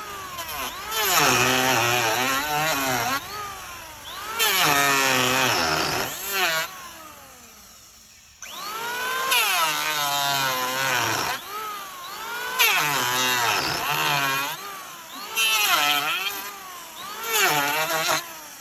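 A wood lathe with a turning tool cutting into spinning wood: a whining, pitched scraping that rises and falls with noisy shaving hiss. It comes in short segments that stop and restart abruptly, with a brief quiet dip about halfway through.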